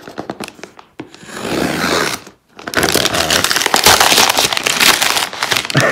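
Thin green wrapping paper being torn and crinkled off a cardboard box by hand. A few scrapes and rustles come first, then continuous tearing and crinkling from about three seconds in.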